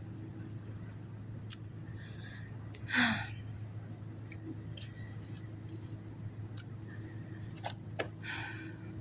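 Crickets chirping: a steady high trill with a second chirp repeating about twice a second. A few faint clicks and one short, louder sound about three seconds in.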